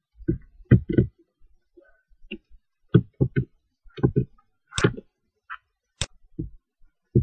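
Computer keyboard keys and mouse buttons clicking: about a dozen short, irregular clicks, some in quick pairs, while text is copied and the user switches windows and selects a spreadsheet cell.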